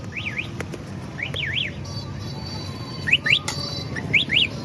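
High chirps that sweep quickly up and down in pitch, in four quick groups of two or three, over a steady low hum of street noise, with one sharp click about three and a half seconds in.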